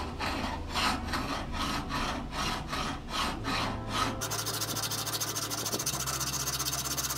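Hand file rasping across the jaw of an old leg vise in even strokes, about two a second. About four seconds in, the strokes give way to a steady high hiss.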